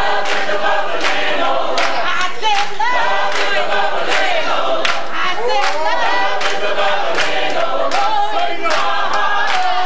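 A gospel vocal group singing in harmony, over sharp percussive beats that keep a steady time.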